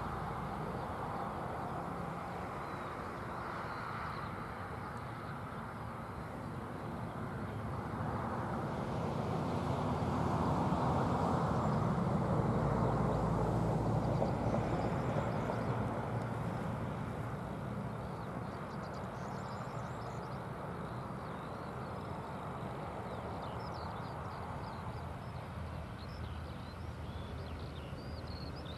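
PKP Intercity ED250 Pendolino electric high-speed train passing at a distance. A low rumble swells for several seconds as it goes by on the curve, then slowly dies away.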